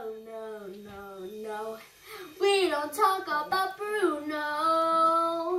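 A child singing a wordless or unclear tune, with gliding notes and one long held note near the end.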